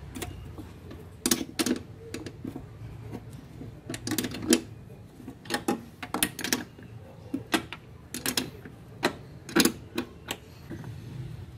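Metal wrench clinking against the clutch master cylinder's fittings as it is set on, turned and repositioned: irregular sharp clicks, often in quick pairs or small clusters.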